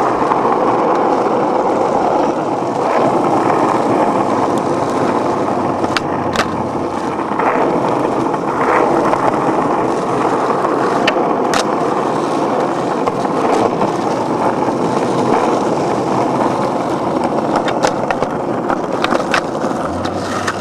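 Skateboard wheels rolling fast over pavement, a steady loud rumbling roar with scattered sharp clicks from cracks and grit under the wheels.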